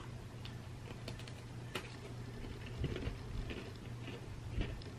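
Chewing a crisp butter coconut cookie: scattered small crunchy clicks, a few louder near the middle, over a faint steady low hum.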